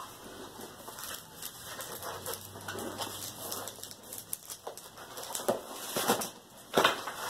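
Paper and plastic wrap rustling and crinkling as a rolled diamond painting canvas is unrolled by hand, with irregular soft handling noise and a few sharper crackles in the last couple of seconds.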